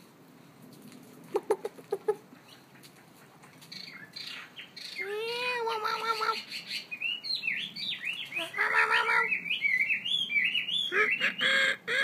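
Caged songbirds calling and singing. A few short clicks come about a second and a half in, then a wavering call that rises and falls around the middle. From about seven seconds on there is a fast run of whistled chirps that glide up and down, broken by lower calls.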